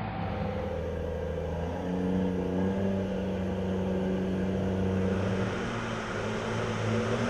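Engines of heavy military vehicles running steadily as they drive, a low hum whose note shifts up a little about two seconds in.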